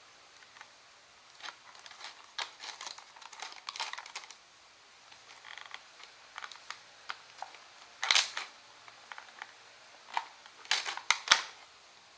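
Handling noises: irregular clicks, taps and rustles, with a sharp louder clack about eight seconds in and a quick cluster of clicks near the end.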